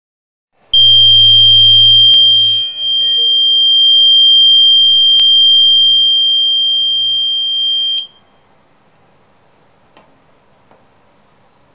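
Battery-powered piezo buzzer sounding one loud, continuous high-pitched tone with a low hum under it, starting abruptly about a second in and cutting off suddenly after about seven seconds. It serves as a test noise that trips a sound level monitor into its over-limit alarm.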